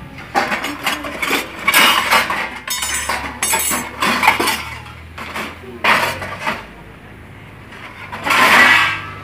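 Stainless-steel dishes and pots clinking and clattering in a basket as a metal snake hook prods and shifts them, with a longer, louder rattle near the end.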